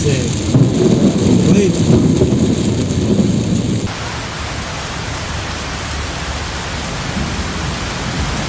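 Heavy rain. For the first four seconds a louder low rumble sits under the rain. After a sudden cut, a steady, even hiss of downpour falls on a flooded street.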